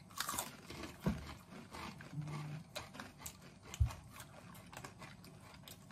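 Two people chewing Takis Fuego rolled tortilla chips: quiet, irregular crisp crunches, with a short low hum about two seconds in.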